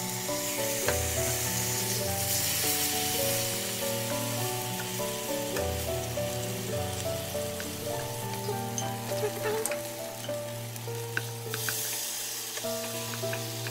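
Sauce-glazed Spam slices sizzling steadily in a hot nonstick frying pan, with a few light clicks of tongs against the pan as the slices are turned. Soft piano music plays underneath.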